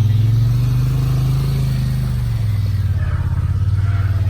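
Engine of an off-road machine running under load while fording a flooded stream. Its pitch dips about two seconds in and then climbs again.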